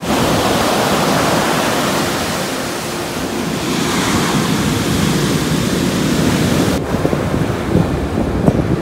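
Ocean surf breaking and washing up the beach, a steady loud rush. About seven seconds in it gives way abruptly to gusty wind buffeting the microphone.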